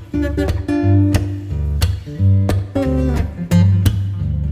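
Background music: acoustic guitar, strummed and plucked.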